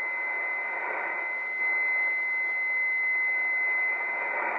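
R-390A tube communications receiver's speaker giving band hiss with a steady high whistle held throughout: the carrier of an amateur station tuning up on 20 meters, heard as a beat tone through the receiver.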